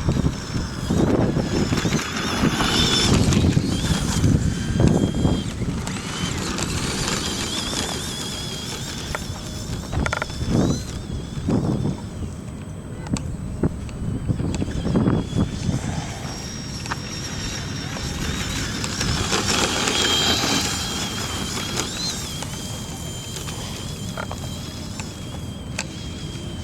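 Electric Horizon Hobby AMP MT RC monster truck running over dirt. Its motor and drivetrain give a high whine that wavers up and down with the throttle, over gusty wind on the microphone and a few thumps from the bumps.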